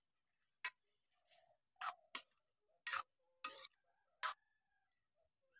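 Metal spatula clinking and scraping against an iron wok as vegetable curry is stirred: about six separate sharp clicks, faint overall.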